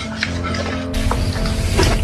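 Background music with sustained notes that turns fuller and slightly louder about a second in.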